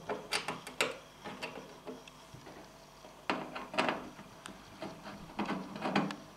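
A screwdriver tip clicking and scraping against the sheet-metal back panel and plastic of an LED backlight strip as the strip is pried loose: a string of irregular short clicks and scrapes.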